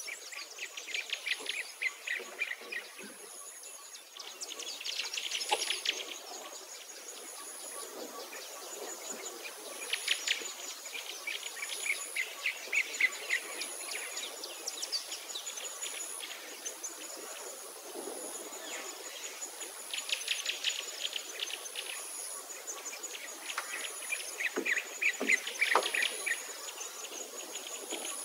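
Wild birds singing in repeated bursts of rapid chirps and trills, over a very high, thin insect trill that pulses on and off about once a second.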